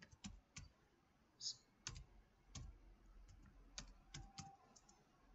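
Faint computer keyboard typing: a dozen or so separate key clicks, irregularly spaced.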